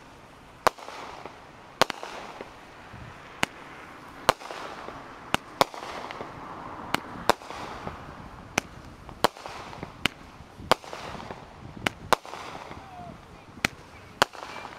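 AFW Vivid Twilight 200-gram repeater cake firing: a fast series of sharp bangs, about one a second, as its shells lift with tails and break into brocade crowns, with a hiss between the reports.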